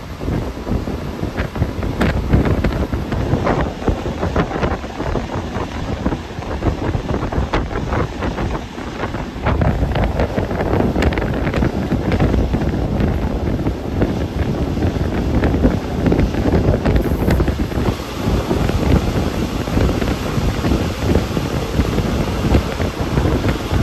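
Class 810 two-axle railbus running along the line, heard from on board: wind buffeting the microphone over the rumble of the ride, with many short clicks and knocks from the wheels on the track. It gets a little louder about ten seconds in.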